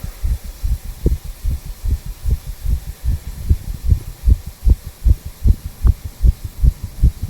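Heartbeat of a 34-year-old man picked up at the tricuspid valve area of the chest: repeating low thumps, several a second, in a steady rhythm.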